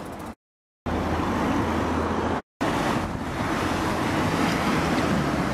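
Road traffic: car engines running and tyres on the road, with wind buffeting the microphone. The sound drops to total silence twice, briefly, just under a second in and about two and a half seconds in.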